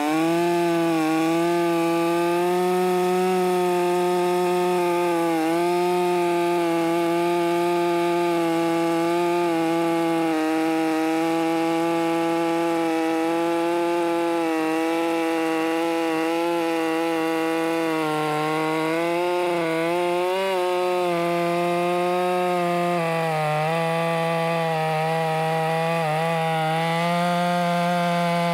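Stihl MS 500i fuel-injected two-stroke chainsaw with a 36-inch bar running flat out through a big log, fed with little down pressure. The engine note holds steady with small dips in pitch now and then as the chain loads in the cut.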